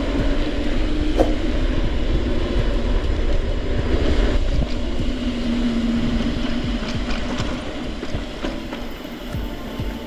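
Rolling noise of an e-mountain bike being ridden: tyre rumble and wind buffeting the camera microphone, with a steady low hum and scattered small clicks. It eases off a little near the end.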